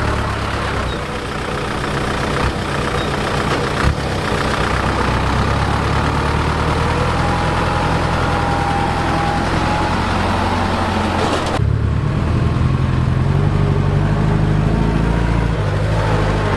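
Heavy construction machinery's diesel engine running steadily. There is a sharp knock about four seconds in. About twelve seconds in the sound changes abruptly, and the low engine note comes through stronger.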